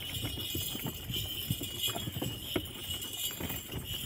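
Camel cart rolling along a sandy track: irregular knocks and rattles from the wooden cart and its chain traces, with a steady metallic jingling.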